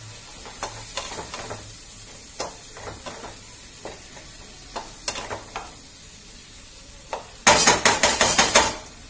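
Spice paste sizzling in a kadai as it is fried down (kosha), stirred with a spatula that knocks and scrapes against the pan now and then. Near the end comes a fast, loud run of scraping strokes against the kadai for about a second and a half.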